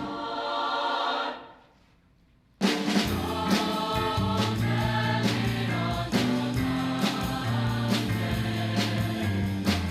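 A choir's last held chord dies away into about a second of near silence. Then music with choral singing and sharp percussive hits comes in abruptly and keeps going.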